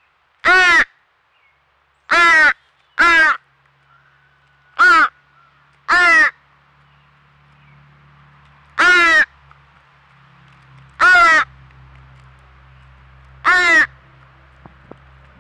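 American crow fledgling begging: eight loud, harsh caws, each short and spaced a second or two apart, repeated over and over.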